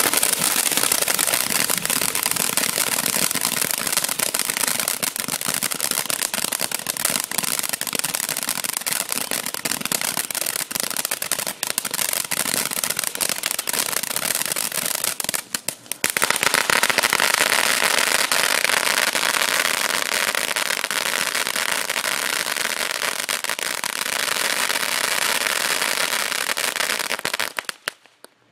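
Popcorn M341 ground fountain firework burning, a steady hiss full of dense crackling. It drops off briefly about fifteen seconds in, comes back with a fuller hiss and crackle for its next stage, then dies out near the end.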